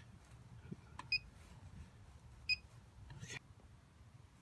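Short electronic beeps from a DigiQ BBQ temperature controller as its buttons are pressed to lower the set temperature: two beeps a little over a second apart, with a few faint clicks.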